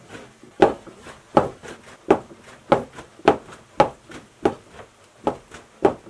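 Wooden hammers of a water-powered fulling mill pounding wet woollen cloth in a wooden trough, with a heavy wooden knock about every two-thirds of a second. This is fulling, beating the wool to felt and thicken it.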